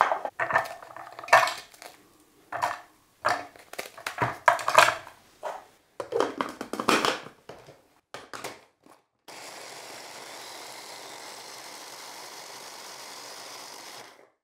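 Butter biscuits and Lebkuchen being dropped into the plastic bowl of an electric mini chopper, with irregular knocks and clatter as the top is fitted. About nine seconds in, the chopper runs steadily for about five seconds, grinding them to crumbs, then stops.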